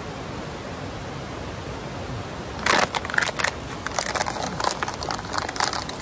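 Steady rushing of a waterfall. From about halfway a rapid, irregular run of sharp crackles and clicks sets in over it and is the loudest sound.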